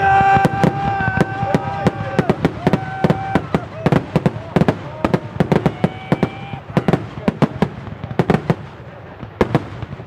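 Fireworks finale: a rapid, irregular barrage of bangs and crackles from shells and salutes bursting, several a second, loudest in the first second. A held note sounds over it for the first few seconds and again briefly around six seconds in.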